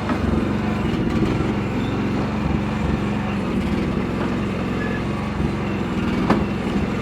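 Chinese mini excavator's engine running steadily while the machine works, with one sharp clank about six seconds in.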